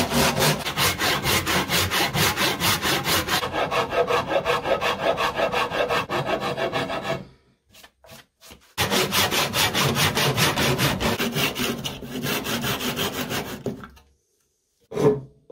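Handsaw cutting through a block of white oak in steady back-and-forth strokes, about four a second. The sawing breaks off briefly about halfway, starts again, and stops near the end.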